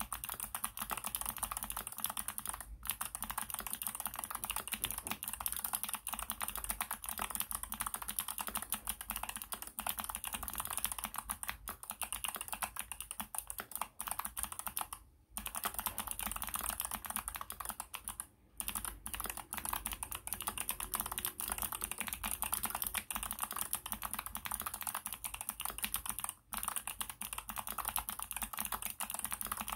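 Continuous typing on a COX Galleon aluminium mechanical keyboard fitted with Kailh Box Jade thick clicky switches: a dense stream of sharp key clicks, with a few brief pauses.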